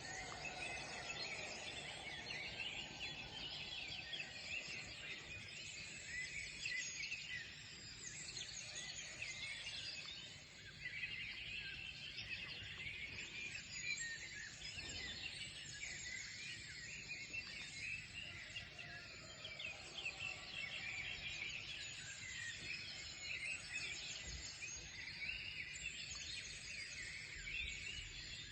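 A dense chorus of many small birds chirping and trilling together without pause, the calls crowding over one another high in pitch, over a faint low background hum.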